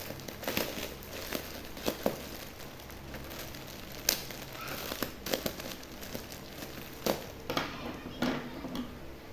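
Plastic packaging crinkling and rustling as it is handled, with irregular sharp crackles.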